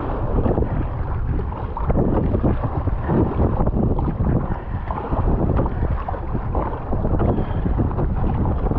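Wind noise on the microphone over water splashing against the hull of an Epic V7 plastic surfski paddled through choppy water.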